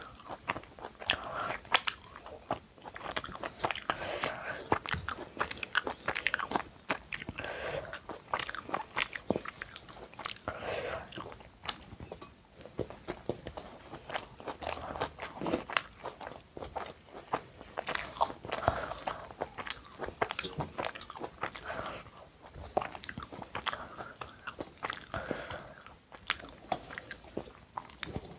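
A person eating chicken biryani with salad: steady biting and chewing with crunchy mouth sounds and many small clicks.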